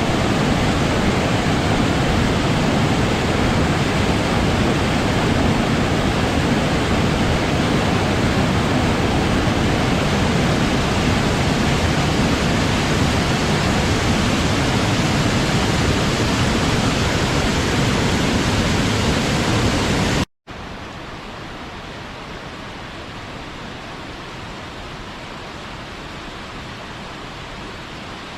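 Waterfall: falling water rushing in a loud, steady, even wash of noise. About two-thirds of the way through it cuts out for a split second and comes back much quieter and duller, a different stretch of falling water.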